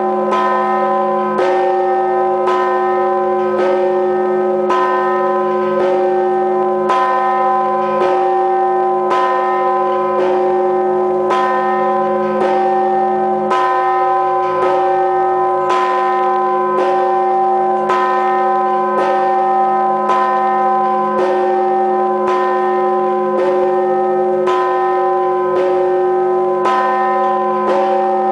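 Orthodox church bell struck at a steady tempo of about 54 strokes a minute, a little under one a second, each stroke ringing on into the next.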